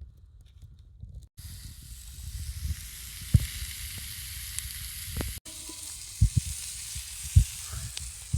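Food sizzling as it cooks over a campfire, a steady hiss that starts about a second and a half in and breaks off briefly in the middle. Low rumble and a few knocks sit beneath it.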